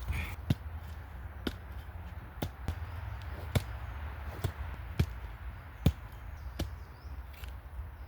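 About ten sharp knocks, irregularly spaced roughly one every half to one second, from the ground being struck while a patch of forest floor is cleared and dug out for a fire pit.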